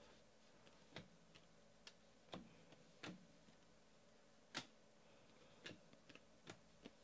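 Faint, irregular clicks and light taps of stiff glossy Panini Select football cards being flipped through and handled in the hand, about a dozen over several seconds.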